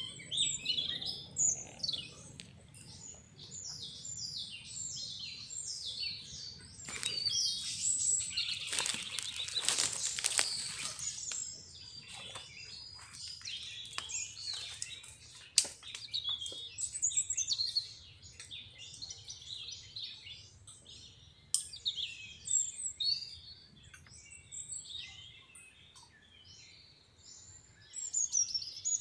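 Many small birds chirping and calling, short quick chirps overlapping throughout, with a louder rustling rush for a few seconds about eight seconds in.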